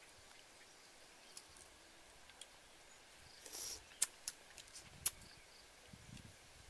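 Close-up eating sounds: a few sharp mouth clicks and smacks about four and five seconds in as food goes into the mouth, then soft chewing. Faint insects can be heard behind them.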